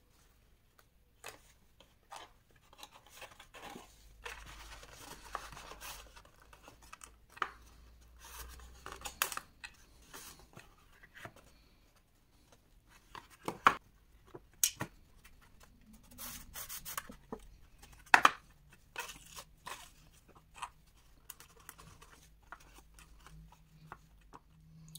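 Cardstock box panels being handled, fitted and pressed together on a cutting mat: scattered rustling and scraping of card with light taps and a few sharper knocks.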